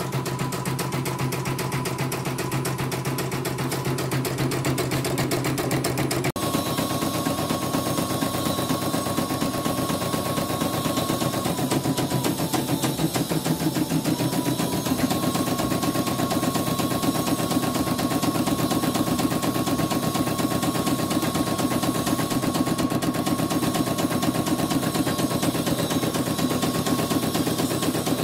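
CNY portable embroidery machine stitching a design on a test run: a steady, very fast clatter of needle strokes over the hum of its motor. The sound shifts abruptly about six seconds in.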